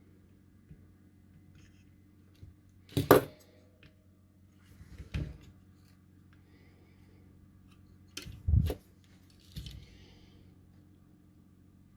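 Side cutters snipping off the soldered capacitor leads under a circuit board: four short sharp snips, two loud ones about three and eight and a half seconds in and two softer ones between.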